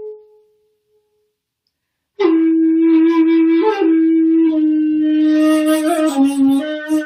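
Shakuhachi playing solo honkyoku. A held note dies away, and after a pause of about a second and a half a new low note starts sharply. It is held long, with a few small pitch bends and audible breath noise in the tone toward the end.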